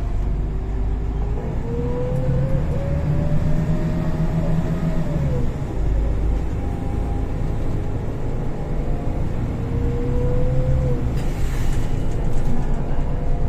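Golden Dragon XML6125 city bus with a Voith automatic gearbox under way, heard from inside the cabin: a low engine drone with a whine that rises as the bus gathers speed, then drops sharply about five seconds in as the gearbox shifts up. The whine rises again and drops once more near the end, with a short hiss just after.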